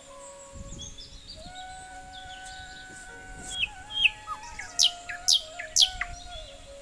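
Birds calling: a quick run of sharp, high chirps, each falling steeply in pitch, starting about halfway through and loudest near the end. Soft background music with held tones plays under them.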